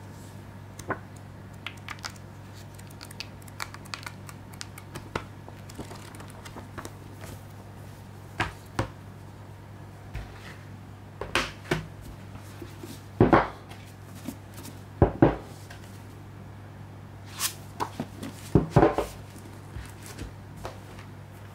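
Gloved hands handling cardboard and paper pieces of a boxed collector's set: light rustles, taps and a few sharper knocks as cards and a booklet are picked up and set down on a table, over a steady low hum.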